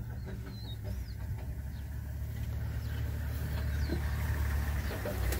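Vehicle engine idling with a steady low hum, with a few short bird chirps early on.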